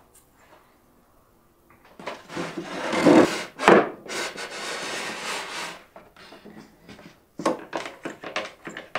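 A wooden panel sliding and scraping into a wooden cabinet frame, with two loud knocks about three to four seconds in. Near the end comes a run of sharp clicks as a quick-grip bar clamp is ratcheted tight on the frame.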